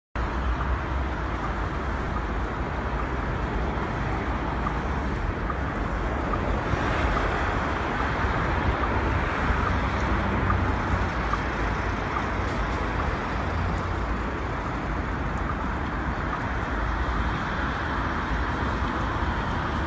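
Busy city street ambience: a steady wash of traffic noise with a low rumble underneath.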